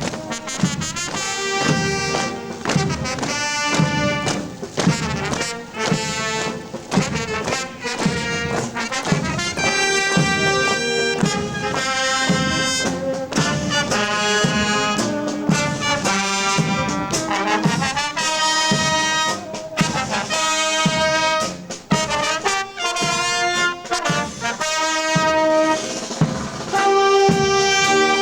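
Military band playing a dobrado, a Brazilian military march: trumpets and trombones carry the melody over a steady marching drum beat.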